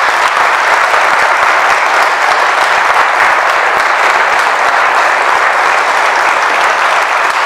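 Audience applauding steadily and loudly, a dense crowd clapping.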